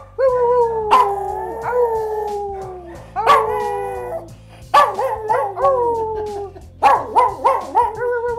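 A dog howling in four long calls that each slide down in pitch. The middle calls break into short rising and falling yelps.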